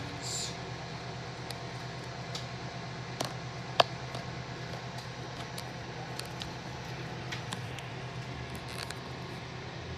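Microwave oven running with a steady low hum, with scattered faint clicks and one sharper click a little under four seconds in.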